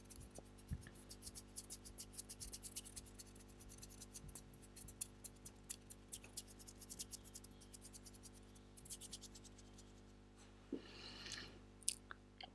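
Fingertips scratching and rubbing right on a small clip-on microphone: a fast, irregular run of crackly scratches that thins out near the end, over a steady low electrical hum.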